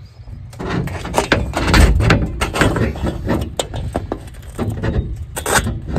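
Irregular scraping, clicking and knocking of a metal spring clip being slid along and pushed onto the aluminium frame edge of a solar panel on its mounting rail, with a heavier thump about two seconds in.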